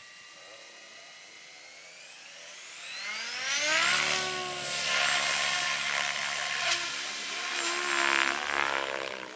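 SAB Goblin RAW 700 electric RC helicopter spooling up: the motor's whine climbs steeply in pitch from about two seconds in and levels off at head speed around four seconds in. It then runs steady and loud, with rotor-blade noise swelling and easing, as the helicopter lifts off and climbs.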